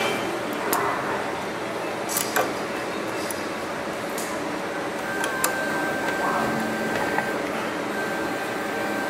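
A few light metallic clicks and taps of a hex key working the small fastening screws on a stepper-motor mount, over a steady background hiss.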